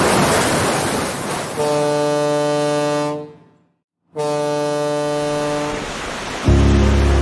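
Ocean surf washing, then two long, deep blasts of a ship's horn with a short silence between them. Music with a heavy bass comes in near the end.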